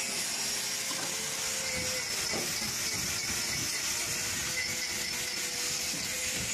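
Steady hiss with a faint steady hum from the air-over-hydraulic system of a cattle hoof-trimming chute, with a few low knocks about two to three seconds in.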